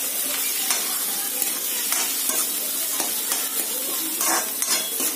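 Chopped onion, green chillies and curry leaves sizzling in hot oil in a metal kadai, while a metal ladle scrapes and clinks against the pan as they are stirred.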